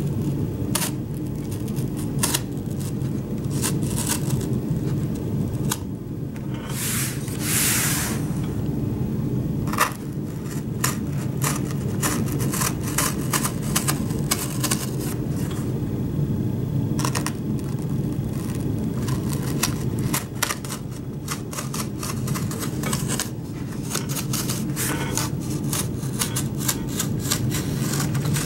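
Utility knife cutting through cardboard along a curve: a run of short, clicky scrapes with one longer rasp about seven seconds in. A steady low hum runs underneath.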